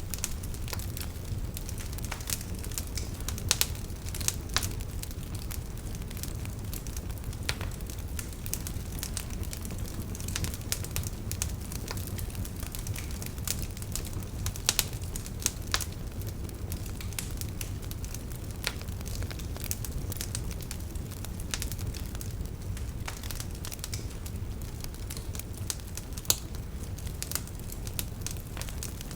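Fireplace fire crackling, with frequent sharp pops and snaps, a few of them louder, over a steady low rumble of the flames.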